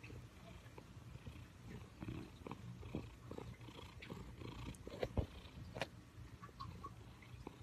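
Siamese cat purring close to the microphone: a low, steady rumble, with scattered soft clicks and rustles of fur and handling against the phone.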